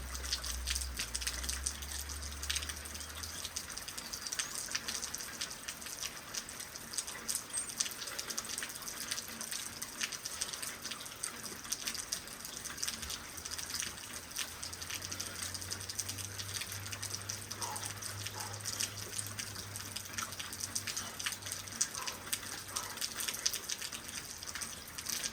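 Steady rain falling, a continuous hiss thick with tiny drop hits and splashes.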